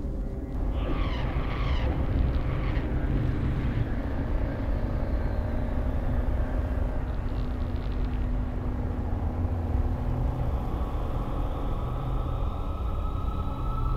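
Low, steady rumbling drone with a few held low tones, a short breathy hiss about a second in, and a faint higher tone slowly rising over the last few seconds.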